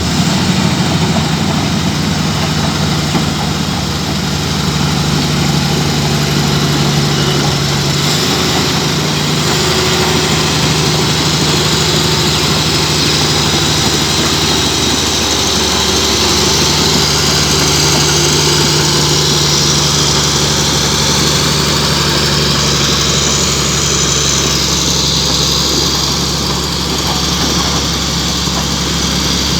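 An engine running steadily at a constant speed, with a low, steady hum.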